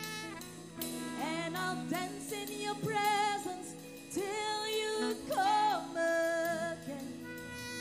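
A woman singing a gospel worship melody in short phrases with vibrato, over held instrumental accompaniment.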